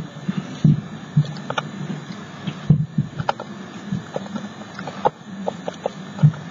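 Children making noise in the background: irregular dull thumps and knocks, with a few short high calls and clicks.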